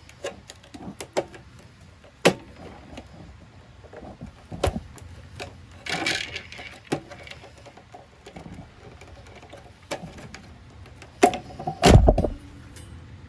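Scattered clicks and knocks of hand tools and fittings being handled while disconnecting the water heater's wiring, with a brief rustle about six seconds in and a heavier thump near the end.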